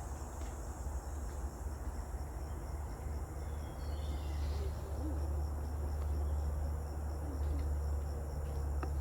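Forest ambience: a steady high-pitched insect chorus over a low rumble. A brief bird call of quick descending chirps comes about four seconds in, with a few soft low calls just after.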